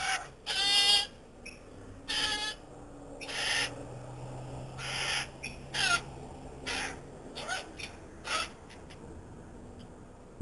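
Currawong calling repeatedly: a string of separate ringing calls about a second apart, some gliding down in pitch.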